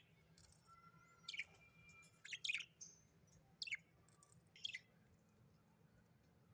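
Budgerigar chirping: about five short, sharp chirps that fall in pitch, spaced out over four seconds, with quiet between them.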